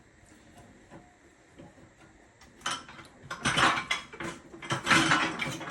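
Metal clanking and scraping as a tire bar on a manual tire changer works a tractor tire's bead over the steel rim. It is quiet at first, then a run of loud metallic clanks and scrapes starts a little past halfway.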